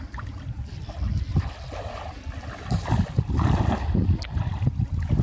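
Wind buffeting the microphone in irregular gusts, with water sloshing and splashing around men wading chest-deep through a pond.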